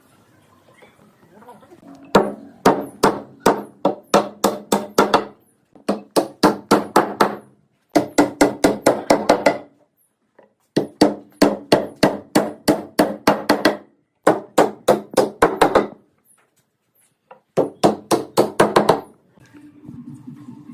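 Rapid hammer blows on wood, about four a second, in six runs broken by short pauses, each blow sharp with a brief ringing tone.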